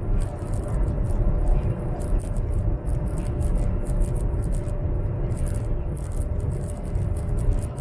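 Running noise inside a high-speed train carriage at speed: a steady low rumble with a faint hum, and irregular light ticking over it.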